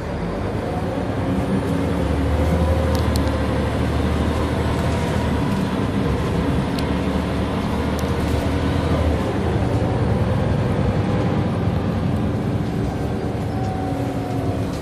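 Scania L94UB bus's diesel engine running under way, heard inside the passenger saloon as a steady low drone with engine tones above it. The deepest part of the drone eases off about nine seconds in, and a few light clicks come through over the top.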